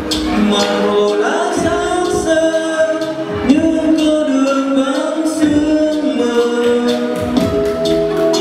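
A man singing a Vietnamese love song into a microphone over a karaoke backing track with a steady beat.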